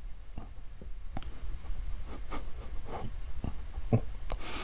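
Faint, irregular taps and rustles from a person's arms pumping briskly up and down beside the body during the Pilates Hundred exercise, over a low steady hum.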